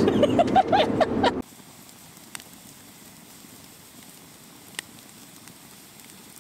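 Road noise inside a moving car's cabin with a few short vocal sounds for about a second and a half, then a sudden cut to a wood campfire burning quietly, with two sharp crackling pops a couple of seconds apart.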